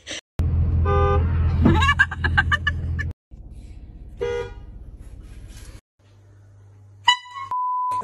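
Horn blasts in a run of short prank clips: a horn blast about a second in followed by a yelled reaction, a brief honk about four seconds in, and a sharp blast near the end that gives way to a steady censor beep.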